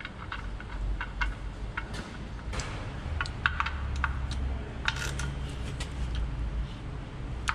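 Ratchet and socket on a 17 mm oil-pan drain plug, ticking and clicking in scattered sharp metal ticks as the plug is threaded in and run down. A low steady hum comes in about three seconds in.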